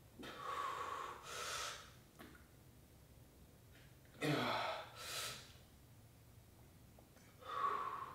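A man breathing hard from exertion: short, forceful breaths in and out in three groups, the loudest about four seconds in, starting with a brief voiced strain.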